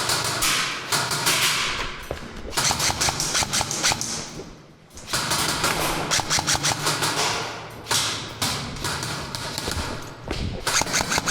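Airsoft guns firing in several long rapid strings of clicks, broken by short pauses.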